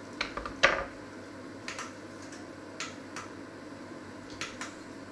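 Sharp knocks and clicks of kitchen utensils being handled and set down on a wooden worktop. The loudest comes about half a second in with a short ring, followed by pairs of lighter taps every second or so.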